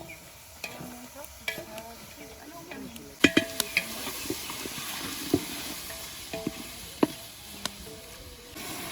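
A spoon stirring chicken in a hot pot, knocking and scraping against the pot while the mixture sizzles. The sizzle swells and a quick run of loud knocks comes a little past three seconds in.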